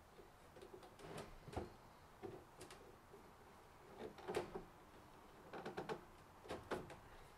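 ¾-inch PVC pipe being handled and pushed into a cement-coated PVC fitting on a plastic rain barrel: faint, scattered clicks and scrapes of plastic on plastic. The loudest comes about four seconds in, with a cluster of clicks near the end.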